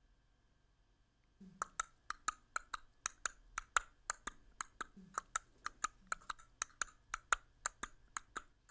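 Horse hoofbeats sound effect for a Playmobil stop-motion film: a steady clip-clop of sharp, hollow knocks, about four a second, starting about a second and a half in.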